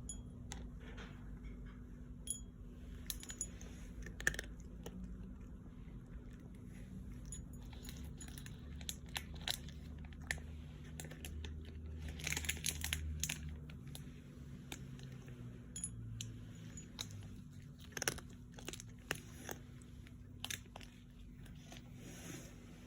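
Crunching and chewing: irregular short, sharp crunches over a steady low hum.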